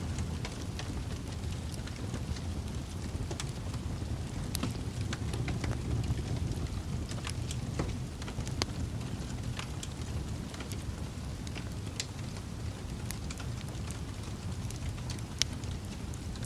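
Wood fire burning with a steady low rush and irregular sharp crackles and pops, one louder pop near the end.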